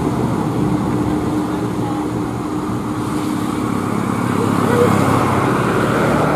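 Mixed road traffic passing close by: bus engines climbing the grade, with cars and motorcycles going past, a steady engine hum under road noise.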